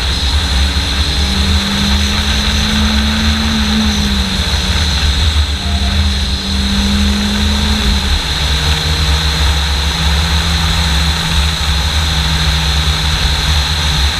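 Fiat Seicento Sporting's 1.1-litre four-cylinder engine running under way. The note climbs in the first seconds, dips about five seconds in, rises again, then settles lower from about eight seconds on. Heavy wind rumble on a bonnet-mounted camera sits under the engine.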